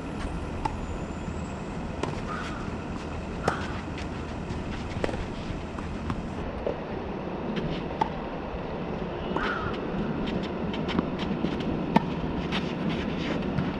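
Sharp, scattered tennis-ball knocks, from balls bouncing on the court and struck by racket strings, over a steady outdoor background noise. The knocks come closer together in the last few seconds, and the loudest, near the end, is a serve being hit.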